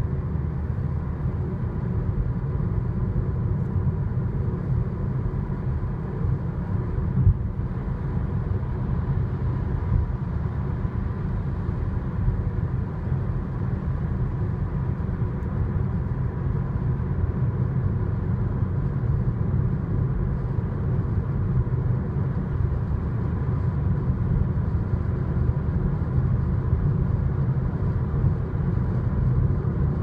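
Cabin noise of a 2019 Audi Q3 35 TFSI S tronic at highway speed, about 90 to 120 km/h: a steady low road and engine rumble with a thin, steady whistle running through it. This is the excessive wind whistle the owner reports above 65 km/h.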